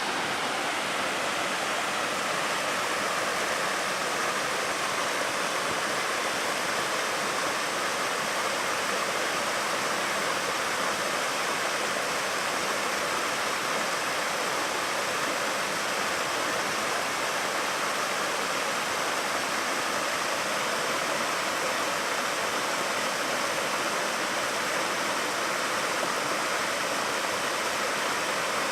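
Small waterfall and stream running high, the water rushing steadily with no change.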